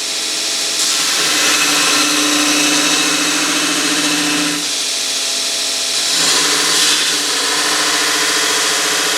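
Power grinder grinding a forged 1084/15N20 Damascus steel knife blank, taking off forge scale and flattening it. The loud, steady whir dips briefly twice past the middle, as the grinding pressure changes.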